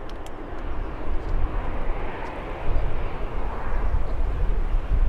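Distant jet engine noise of a Boeing 787-9 on its landing roll: a broad rushing sound that swells through the middle and eases again, over a low rumble.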